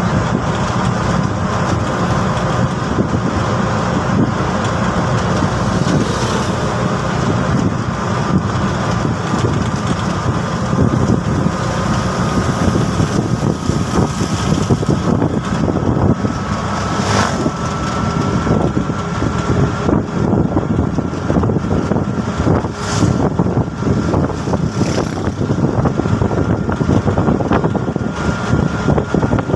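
TVS King Deluxe three-wheeler's single-cylinder four-stroke engine running under way, with road and rattle noise inside the cab. A faint whine rises slowly in pitch as the vehicle speeds up gradually.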